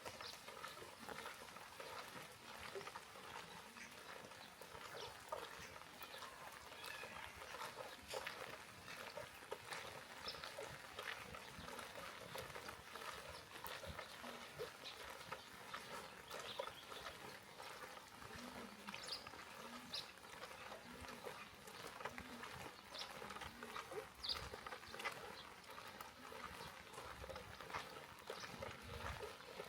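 Rain falling steadily, a soft hiss dotted with the ticks of individual drops. In the second half a string of short low sounds comes about once a second.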